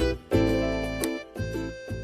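Background music with notes on a keyboard over a steady bass line.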